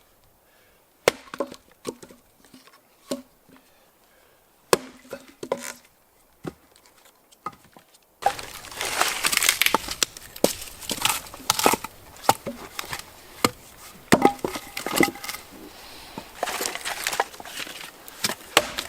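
Firewood being handled and broken for a campfire: separate sharp cracks and knocks, then, after an abrupt change about eight seconds in, a louder, dense run of crackling and snapping.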